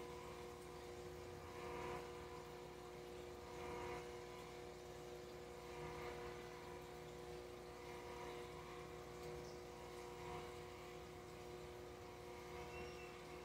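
Faint steady hum of an aquarium's air pump, with the air stone's bubbles rising in the tank; the sound swells slightly about every two seconds.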